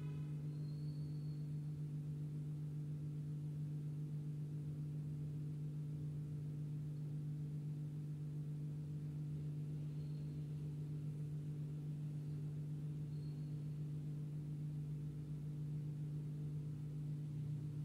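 A steady low hum that holds one pitch throughout, with a few faint, short high peeps about a second in and again near ten and thirteen seconds.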